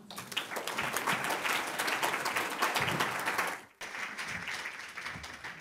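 Audience applauding after a talk. The clapping is fullest for the first three and a half seconds, breaks off abruptly, then carries on more quietly and dies away.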